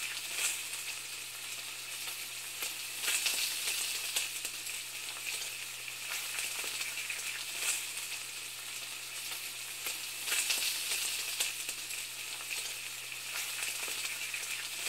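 Food frying in a hot pan: a steady sizzle with louder crackles every few seconds, over a faint low hum.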